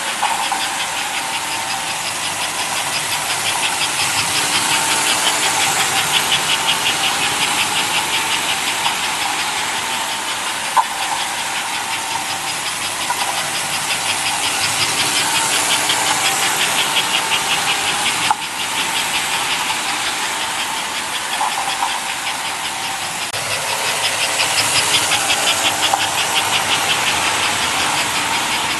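American Flyer S-gauge model train running on its track loop: a steady whirring hiss with rapid, even ticking from the running gear on the rails. It grows louder three times as the train comes round near the microphone and fades as it goes away. A single sharp click comes about eighteen seconds in.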